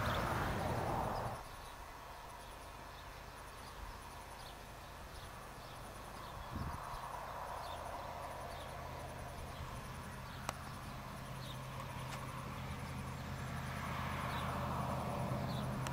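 Faint, evenly repeated high-pitched insect chirping over a low steady hum. A louder rush of broad noise dies away in the first second or so and swells again near the end.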